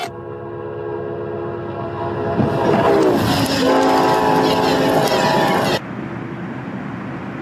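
A diesel locomotive's horn sounds steadily as the train bears down on a level crossing, then drops in pitch as the train passes, the Doppler shift of a train going by at speed. The horn cuts off abruptly about six seconds in, leaving a steady rushing noise as a train ploughs through deep snow.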